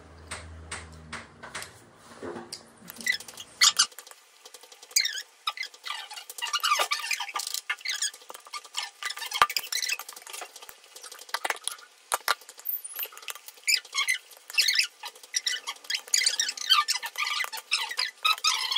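Close-up eating sounds: a metal spoon clicking and scraping on a plate and the wet clicks and smacks of chewing rice, many small crackles in quick succession.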